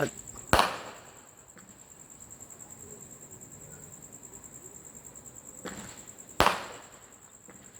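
Two sharp firework bangs about six seconds apart, each trailing off in an echo.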